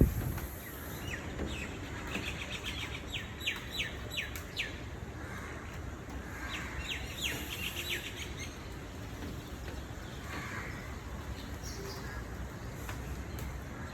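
Birds chirping outdoors in two quick runs of rapid, falling chirps, with a few fainter calls later, over a steady low background hum. A sharp click sounds right at the start.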